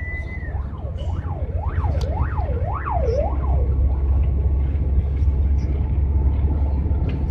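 An emergency vehicle's siren: one rising wail, then a fast up-and-down warble of about two sweeps a second that stops about three and a half seconds in. Under it, a steady low engine and road drone heard from inside the van's cab.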